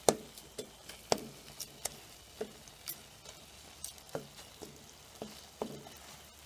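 Spoon stirring lentil dhal in a metal pot, knocking against the pot about a dozen times at irregular intervals of roughly half a second, over a faint sizzle.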